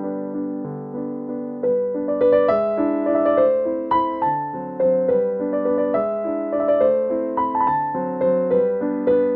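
Background piano music: a gentle melody of struck, fading notes over held chords, growing busier about two seconds in.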